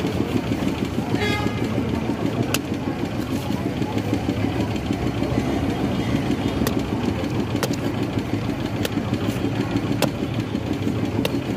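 Steady engine rumble from a running motor throughout, with about six sharp clicks spread over it as a machete blade cuts into a toddy palm fruit held against a wooden stump.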